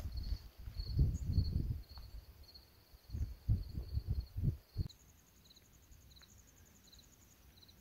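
Crickets chirping in a steady rhythm, about two chirps a second, with a faster insect trill joining about five seconds in. Low gusts of wind rumble on the microphone through the first five seconds, then stop.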